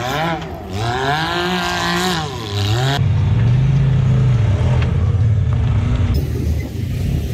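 Side-by-side UTV engines revving in a run of spliced clips. The first is a rev that rises, holds and falls over about three seconds. It then cuts to a steadier, lower engine run, and cuts again about six seconds in.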